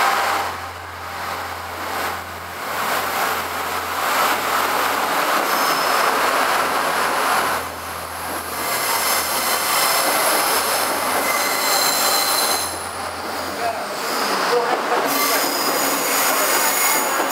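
Irish Rail Commuter diesel multiple unit rolling past along the platform with a steady rumble. Its wheels squeal now and then in thin high tones.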